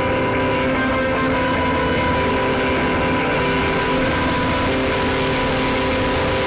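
Soundtrack music of held, sustained chords over a low rumble, with a rising hiss swelling over the last few seconds.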